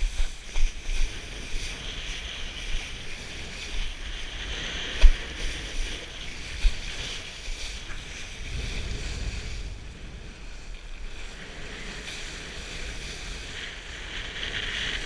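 Wind buffeting a kitesurfer's action-camera microphone, with the rushing hiss of the board planing over choppy water. Two sharp knocks stand out, about five seconds in and again a second and a half later.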